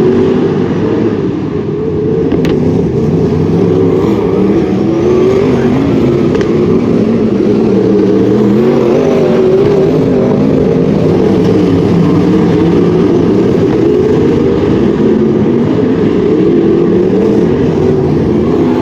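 Wingless sprint car engines running hard on track, their pitch rising and falling continuously as the cars go through the turns and down the straights.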